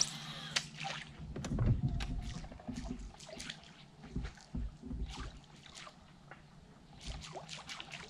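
Water sloshing and splashing with scattered small knocks and clicks, a busier patch of low thumps about two seconds in, while a hooked snapper is being worked near the surface.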